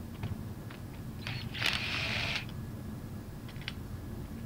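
Cordless impact wrench running in a burst of about a second, starting about a second and a half in, as bolts are spun off the pump's suction manifold. A few light metallic clicks come between the bursts, over a low steady hum.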